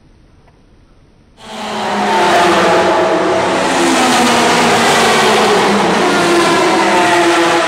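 Several racing cars' engines running at high revs together, coming in abruptly about a second and a half in and then holding loud and steady.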